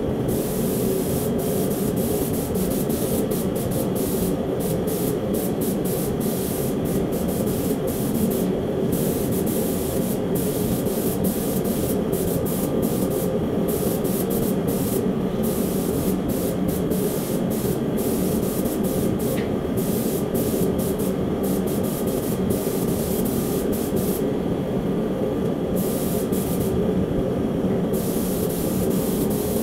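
Compressed-air paint spray gun spraying base coat, its hiss cutting in and out many times as the trigger is pulled and released, over a steady lower rush.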